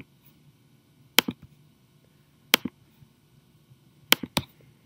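Computer mouse button clicking: single sharp clicks spaced more than a second apart, then two in quick succession near the end, over quiet room tone.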